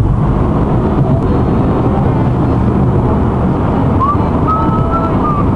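Steady drone of road and engine noise inside the cabin of a Chevrolet Aveo cruising on a highway, mostly low in pitch and unbroken.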